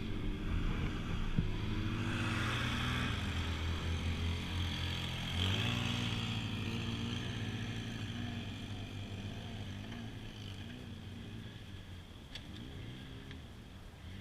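ATV engine running under throttle, revving up about five seconds in, then getting steadily quieter toward the end.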